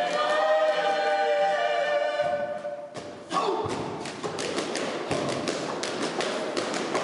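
A Maori performing group sings a held chord together in harmony, fading out after about two and a half seconds. About three seconds in, loud group shouting starts suddenly, thick with sharp slaps and stamps, as in a haka's war poses.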